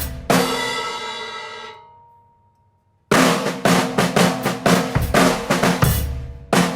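Drum kit with a Peace snare drum being played: a stroke just after the start rings out and fades away over about two seconds, then after a brief near-silence the beat starts up again about three seconds in and runs on in a steady rhythm.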